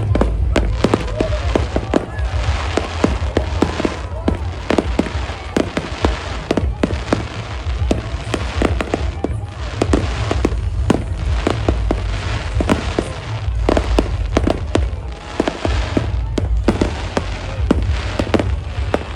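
Fireworks display: a dense, irregular run of sharp bangs and cracks, several a second, over a continuous low rumble from the bursts.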